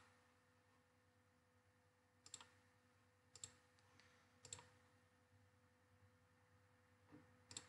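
Faint computer mouse clicks: three clicks about a second apart, then two more near the end, each a quick press-and-release tick.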